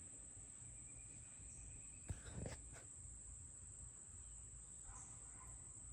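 Faint steady high-pitched insect chorus, crickets and the like trilling without a break, with a few soft clicks and knocks about two seconds in.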